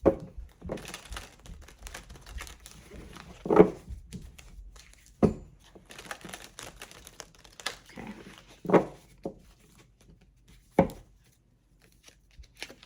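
A deck of tarot cards handled: cards shuffled and slid with a soft rustling, and several sharp taps as cards are drawn and set down on the table.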